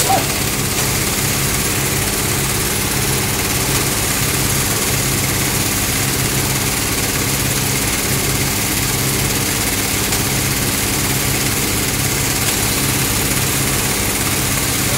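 Electric embroidery machine running steadily, its needle stitching at a fast, even rate with a constant motor hum and rattle.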